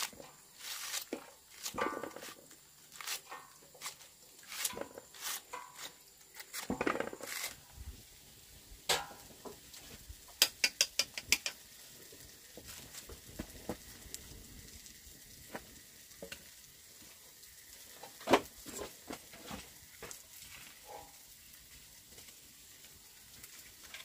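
Cooking over a fire: a utensil knocking and scraping in a pan over a faint steady frying sizzle. A quick run of about eight sharp taps comes a little before halfway, and a single hard knock about three quarters through.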